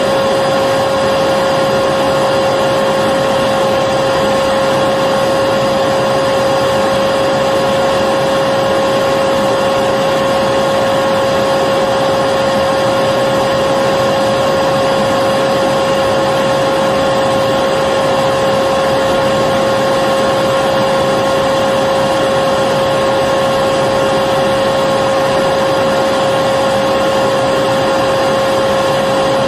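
Electric vacuum cleaner running continuously: a steady motor whine over a rush of air, unchanging in pitch and level.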